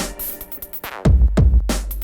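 Electronic background music with a drum-machine beat, deep bass and a rising swept effect about a second in.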